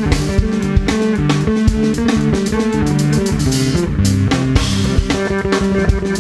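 Instrumental band playing: a plucked Isan string instrument carrying a busy melody over a drum kit keeping a steady beat and a bass guitar line.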